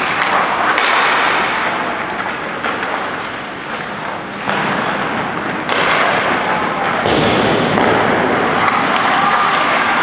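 Ice hockey practice on a rink: skates scraping and carving on the ice in a steady wash of noise, with a few sharp knocks of sticks or pucks. It gets louder about four and a half seconds in.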